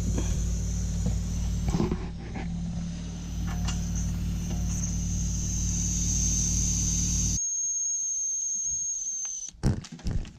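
Trapped air whistling out of a radiator bleed valve in a newly filled central heating system, a steady high whistle over a steady low hum. The hum cuts off about seven seconds in, the whistle stops about two seconds later, and a few clicks of the bleed key follow near the end.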